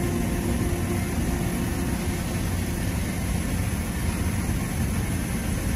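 Steady low rumble with a hiss from the work site while a stainless steel pipe is TIG welded, even throughout with no distinct strikes or knocks.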